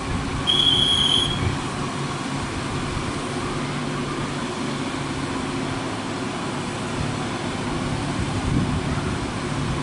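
Heavy MAN TGS 40.440 truck's diesel engine running with a steady low drone as it slowly hauls a crane on a lowbed trailer. A brief high squeal sounds about half a second in.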